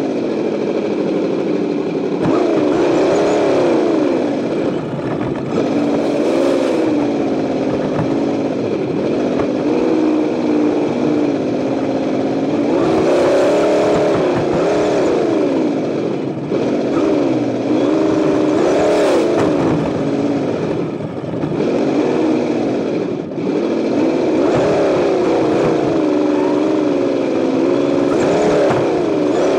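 Simulated engine sound from an Associated ESS-One sound unit on a Tamiya Lunch Box RC truck, played through its small speaker. It revs up and falls back again and again as the truck is driven, over a steady hiss and rattle of the truck rolling on asphalt.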